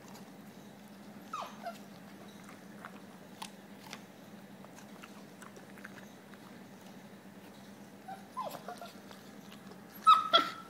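Alaskan malamute chewing a chunk of food, with scattered faint crunches. Short high whimpers that fall in pitch come twice, and a louder, brief high cry comes near the end.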